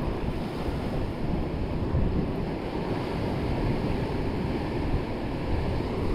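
Sea surf washing against shoreline rocks with wind buffeting the microphone: a steady, low rushing noise with no distinct events.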